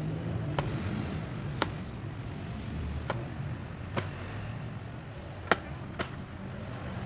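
Cleaver-style kitchen knife chopping peppers on a wooden cutting board: a handful of sharp, unevenly spaced knocks of the blade on the board, over a low steady rumble.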